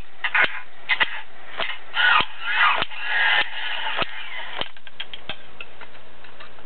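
Electronic Jack Monkey toy drumming on its barrel: sharp taps about every 0.6 s, with bursts of hiss in the middle, stopping about five seconds in.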